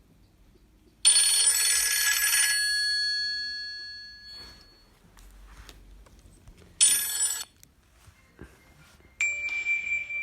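Nokia N73 mobile phone playing ringtones through its small loudspeaker: a bright bell-like chime about a second in that rings on and fades over a few seconds, a second shorter chime some seconds later, and a stepped electronic melody starting near the end.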